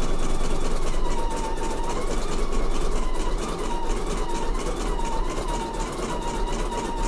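Computerised embroidery machine stitching a free-standing lace motif: a rapid, even needle clatter over a motor whine that wavers slightly in pitch, with a low steady hum beneath.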